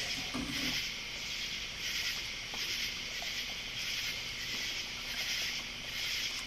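Night insect chorus: a dense, high buzzing that swells and fades in a steady rhythm, a little more than once a second.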